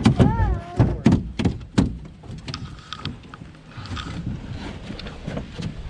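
A brief high, wavering whine at the start, then a run of sharp knocks and thumps over the first two seconds, followed by quieter rustling and light clicks: gear being handled in a fishing boat.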